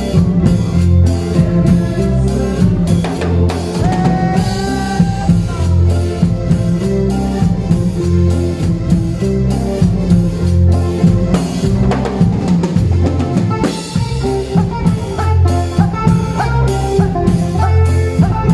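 Live band playing an instrumental passage of a song: a drum kit with rimshots and bass drum keeping a steady beat under a repeating bass line, with short melodic lines from a lead instrument over the top.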